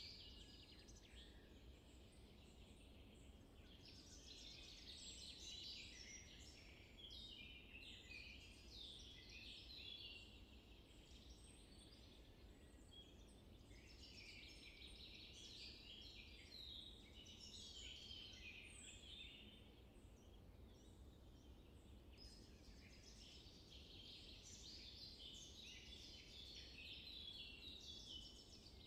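Faint birdsong: small birds chirping and twittering in clusters of quick high notes that come and go, over a faint low background rumble.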